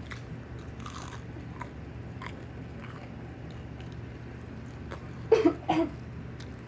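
Someone chewing and biting into chicken nuggets close to the microphone: faint scattered crunchy clicks over a steady low hum. About five seconds in, two short, loud vocal sounds.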